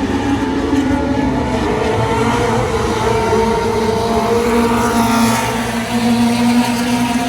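Front-wheel-drive race car engines running hard at high revs during a race, their pitch rising and falling as they accelerate and lift.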